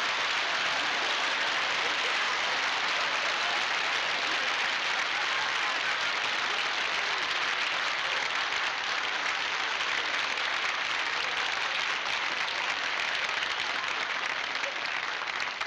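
Studio audience applauding steadily for about fifteen seconds, dying away near the end.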